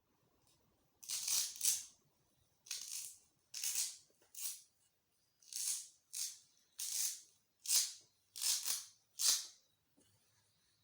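Hook-and-loop (Velcro) fastener being torn apart again and again: about a dozen short, crunchy rips, often in quick pairs, beginning about a second in.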